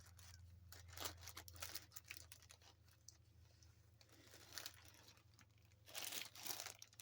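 Faint rustling and short scratchy clicks of latch-hooking: a latch hook pulling yarn through stiff rug canvas, with a few louder rustles about a second in, past the middle and near the end. A low steady hum runs underneath.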